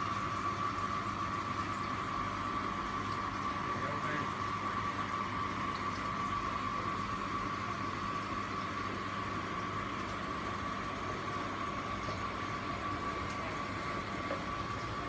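Steady running noise of a reef aquarium system: water circulating through the coral trays and pumps humming, with a constant whine over a low hum that never changes.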